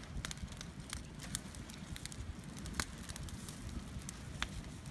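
Open wood fire crackling, with sharp pops at irregular intervals.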